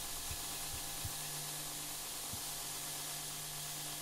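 Belt grinder running with nothing on the belt: a steady hiss over a low, even motor hum, with a few light knocks about a second in and past the middle as the knife blank is handled at the work rest.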